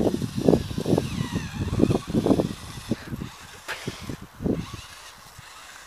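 Small electric 1:18 HB-P1801 RC rock crawler driving on a loose sandy slope: irregular low rumbling and scrabbling with a faint wavering motor whine, dying down after about three seconds.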